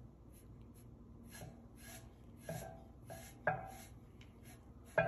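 Chip brush sweeping loose glass glitter across a painted tabletop in short, light strokes, about two a second, with a few sharper taps among them.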